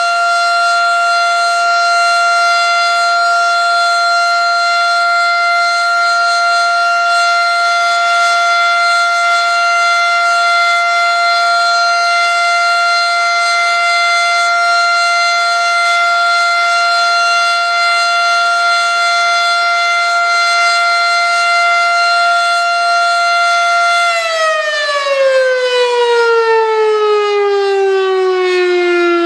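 Federal Signal Model 7A electromechanical outdoor warning siren sounding a steady tone at full speed for its monthly test. About 24 seconds in the pitch begins to fall as the rotor winds down, gliding lower to the end.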